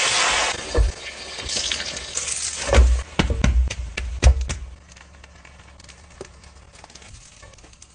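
Beaten egg poured into a hot frying pan, sizzling loudly at first and then more softly. Scattered soft taps and knocks follow as toppings are laid on.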